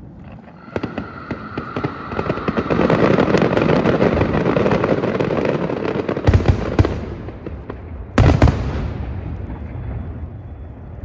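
Fireworks display: a dense crackle of many rapid small pops starts about a second in and swells. Two loud bangs follow around six and eight seconds in, then the crackle fades away.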